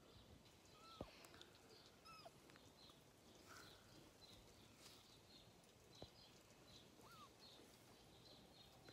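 Faint outdoor background of small birds chirping over and over, with three short high calls that rise and then drop away.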